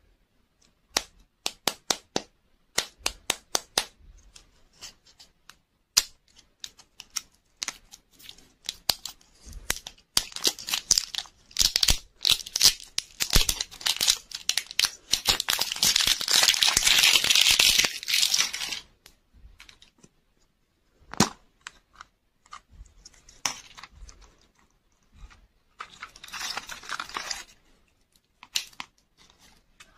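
Printed plastic wrapper being torn and peeled off a toy-surprise lollipop's plastic ball: scattered sharp clicks of handling at first, then about ten seconds of dense crinkling and tearing. Near the end, more clicks and a shorter crinkle as the plastic capsule is opened.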